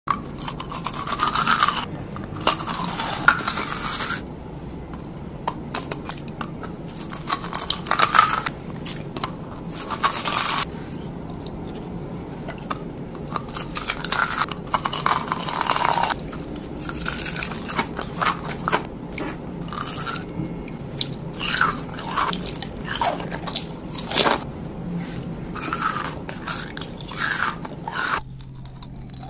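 Close-miked biting and chewing of sugar-crusted, gem-shaped crystal candy. It comes as repeated crunching, crackling bursts a few seconds long, and goes quieter near the end.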